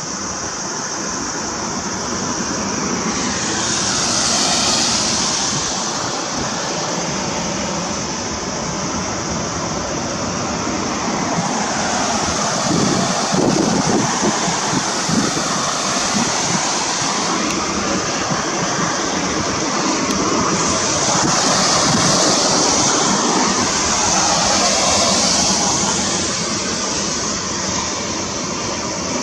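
Steady outdoor rushing noise with a high, hissing band that swells and fades a few times. A low rumble builds up around the middle and eases off after a few seconds.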